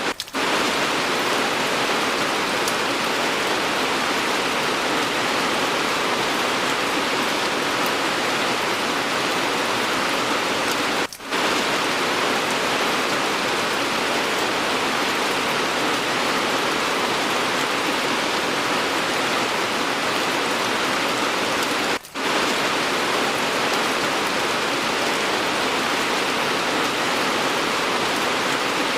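Steady rain, an even hiss of many drops, that cuts out for a moment three times, about eleven seconds apart.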